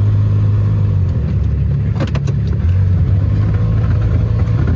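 A vehicle engine running with a low, steady hum that shifts in pitch twice, with a few sharp clicks or knocks about two seconds in.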